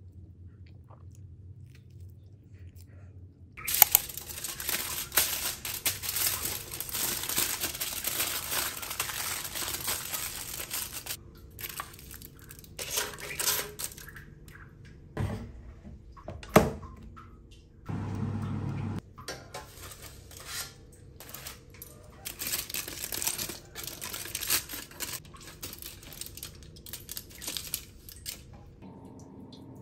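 Aluminium foil crinkling and rustling as a foil packet is handled in an air-fryer basket and opened out around a cooked fish. It starts a few seconds in, runs thick for several seconds, then comes in bursts, with a couple of sharp knocks.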